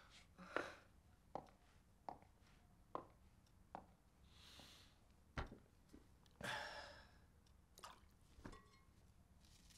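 Faint kitchen handling sounds: soft clicks and knocks about once a second as food is handled over stainless steel bowls, with a short scraping rustle about six and a half seconds in.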